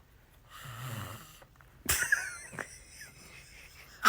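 A single raspy snoring breath lasting about a second, followed by a sharp click about two seconds in and a brief high squeak.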